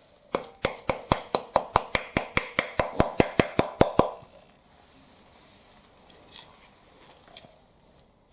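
A quick, regular run of about eighteen sharp taps or clinks, each with a short ring, speeding up slightly to about five a second and stopping about four seconds in.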